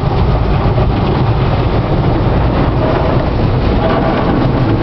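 Automatic car wash spraying water and soap over a car, a steady loud rush heard from inside the cabin.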